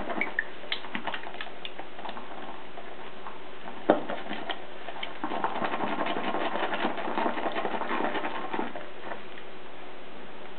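Shaving brush whipping soap, shaving cream and glycerin into a thick, nearly finished lather in a ceramic bowl: a fast run of fine, wet clicking that is busiest in the second half. There is one sharper knock about four seconds in.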